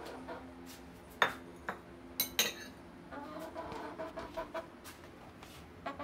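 A Sapphire Gem hen stepping along the edge of a sink full of dishes: a few sharp clinks of dishes and utensils in the first half, then low clucking.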